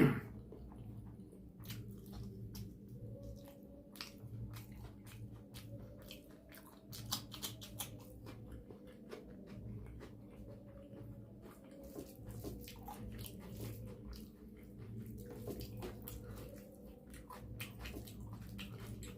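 Close-miked chewing and biting of soft food, with irregular wet mouth clicks and smacks throughout. There is a short loud bump right at the start.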